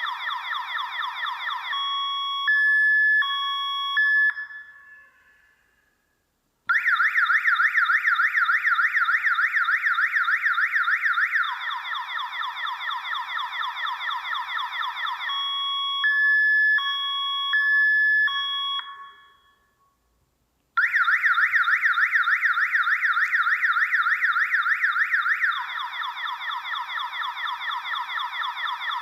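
Electronic multi-tone alarm siren of a DIY motion-sensor alarm going off: a fast warbling wail, then a slower, lower wail, then a stepped two-tone beeping. It cuts out twice for a couple of seconds and starts again.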